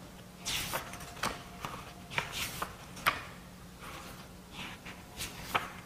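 Pages of a small book being handled and turned close to a lapel microphone: a string of soft paper rustles and light clicks, over a faint steady hum.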